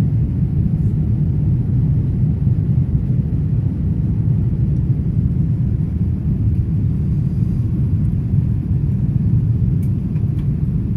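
Steady low rumble of jet engine and airflow noise heard inside the cabin of a Boeing 787-9 airliner in flight after takeoff.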